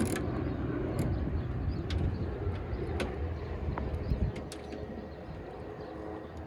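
Irregular clicks of a ratchet wrench loosening the 7 mm nuts of a Mustang decklid panel, over a low steady hum.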